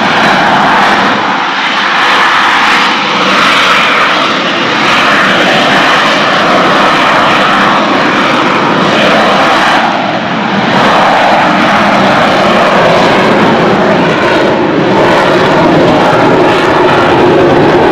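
AV-8B Harrier II's Rolls-Royce Pegasus turbofan running loud and steady while the jet hovers and moves slowly on engine thrust, its nozzles pointed down.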